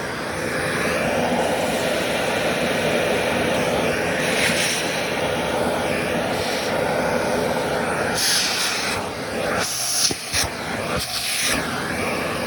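Vacuum cleaner running steadily with a whooshing suction noise. From about eight seconds in, the sound dips and flares several times, with a couple of sharp clicks near ten seconds in, as the suction changes against the socks.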